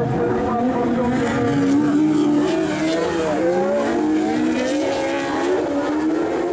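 Several autograss racing cars' engines revving hard on a dirt track, their pitches repeatedly rising and falling and overlapping one another.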